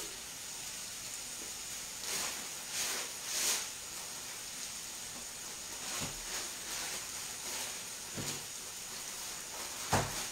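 Pumpkin and sausage sizzling steadily in a frying pan on a gas hob, with a few brief rustles and soft knocks along the way.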